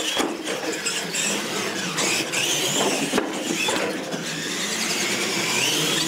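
Radio-controlled monster trucks racing on a hard floor, their brushed electric motors and gearboxes whining, the pitch rising and falling with the throttle.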